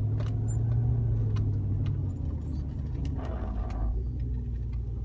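Steady low rumble of a 2001 Jeep Grand Cherokee heard from inside the cabin while driving slowly, with a brief rougher noise about three seconds in.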